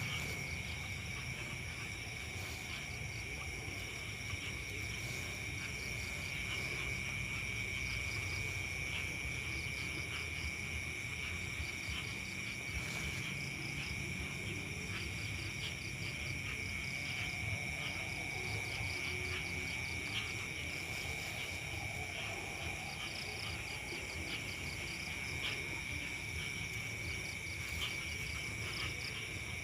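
Insects trilling: a steady high-pitched trill runs without a break, with rows of rapid pulsing chirps higher up, over a low rumble.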